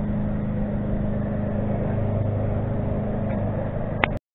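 Steady roar of a propane burner heating a crawfish boil pot, with a low hum under the rushing noise. It cuts off suddenly near the end.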